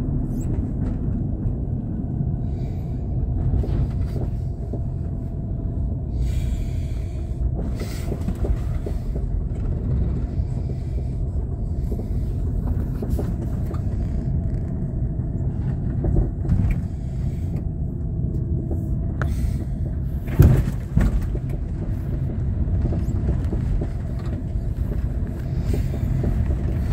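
Steady low rumble of a car's engine and tyres on the road, heard from inside the cabin while driving. A few short knocks cut through it, the loudest about twenty seconds in.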